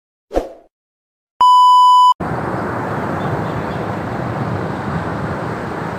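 A short blip, then a loud electronic beep of under a second that cuts off abruptly. A steady rush of sea surf and wind follows, with waves breaking on a shingle bar.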